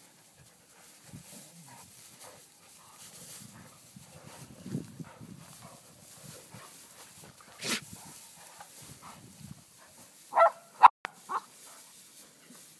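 Dogs play-wrestling in a pile of loose hay: the hay rustles and scuffles unevenly, there is a brief louder burst about eight seconds in, and three short, sharp yelps come close together near the end.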